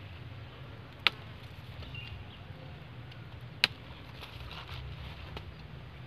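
Two sharp snips of garden scissors cutting papaya flower clusters from the tree, about a second in and again two and a half seconds later, over a steady low outdoor background.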